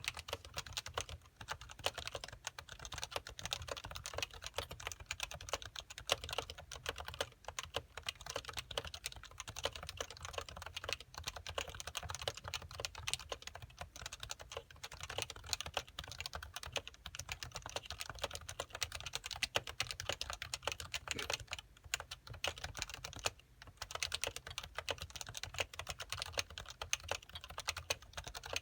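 Continuous typing on a Happy Hacking Keyboard Pro 1 with stock, unsilenced 45 g Topre switches: a dense stream of key strokes, with a short pause about three-quarters through.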